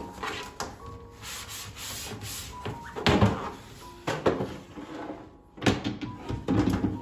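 Household handling sounds: rubbing and scrubbing with several knocks of things being moved or set down, the loudest about three seconds in.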